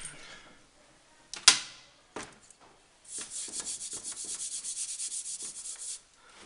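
Rummaging through stored things: a sharp knock, then about three seconds of rapid, even rubbing or scraping strokes.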